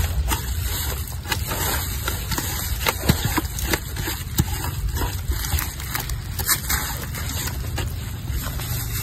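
A hand squishing and scraping a wet spice paste made with yogurt in a metal pot, with many short wet clicks and smacks.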